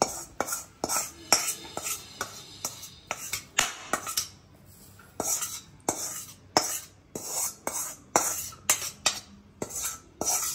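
A spoon scraping and knocking against a kadai in a quick, irregular series of sharp clinks and scrapes, as roasted gram flour is scooped out into another vessel.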